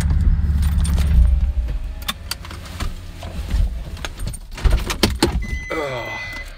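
Car engine idling, heard from inside the cabin, goes quiet about a second and a half in. Then keys jangle and things clatter as they are handled, and a short steady beep sounds near the end.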